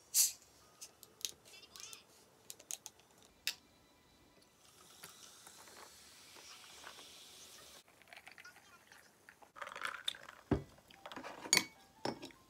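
Bottle of Coca-Cola twisted open with a sharp hiss of escaping gas, then cola poured over ice in a glass, fizzing steadily for about three seconds. A few knocks and clicks of glass and tableware follow near the end.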